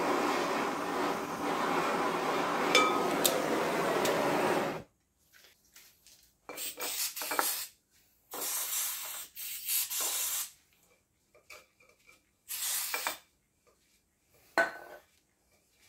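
Handheld gas blowtorch burning with a steady hiss for about five seconds, heating a seized steel brake adjuster to free it. It cuts off suddenly, followed by a few short bursts of hiss and rubbing and a single sharp knock near the end.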